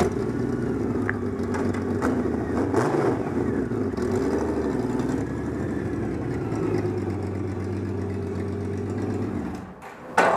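Honda Rune's 1832 cc flat-six engine running at low speed as the motorcycle is ridden slowly and parked, its pitch rising and falling a little. It is switched off and stops suddenly near the end.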